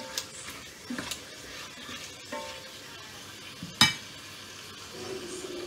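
A spatula stirring pieces of pork in a pot, with scattered knocks and clinks of utensils on pots and dishes and one sharp clink about four seconds in. A steady hum starts near the end.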